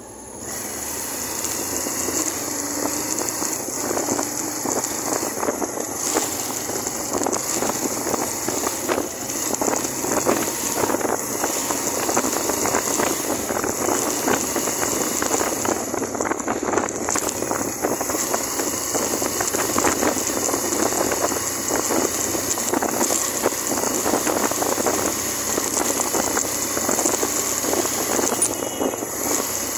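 Wind buffeting the microphone on a moving Suzuki GN125 motorcycle, a steady rushing crackle with the bike's small single-cylinder engine running beneath it. The noise picks up just after the start and then holds steady.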